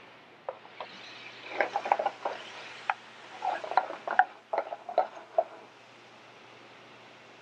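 Metal tongs clinking and knocking against a steel sauté pan as butter is worked into the pan sauce, in a quick irregular run of clicks that stops about five seconds in, over a faint sizzling hiss.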